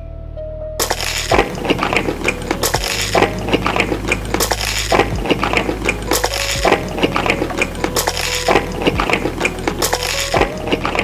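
Dense, close-up crackling and clinking from food and utensils being handled, starting about a second in, over background music with steady held notes.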